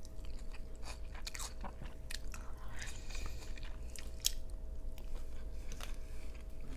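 Close-miked chewing and biting of an angus beef slider, with irregular small wet clicks and soft crunches from the mouth.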